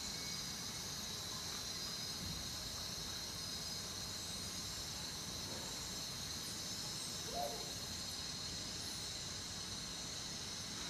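Steady ambient hiss with a bright high band throughout, and one faint short call about seven and a half seconds in.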